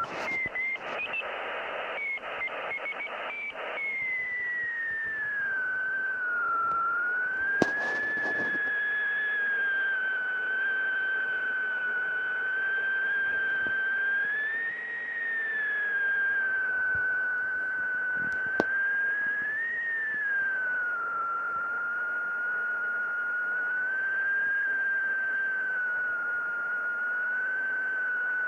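A Yaesu FT-290R transceiver in CW mode plays a received carrier from its speaker as a whistling beat-note tone over receiver hiss. The tone breaks up choppily for the first few seconds, then holds while wandering slowly up and down in pitch, which shows the signal drifting in frequency. Two sharp clicks come along the way.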